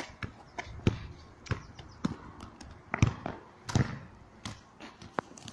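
A football being played on tarmac: a series of sharp thuds about once or twice a second as the ball is struck and bounces, the loudest about three seconds in.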